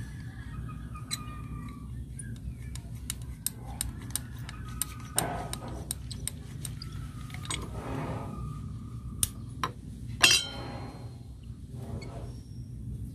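Scattered metallic clicks and clinks from handling a brake caliper and a homemade piston compressor tool, with one loud ringing metal clank about ten seconds in.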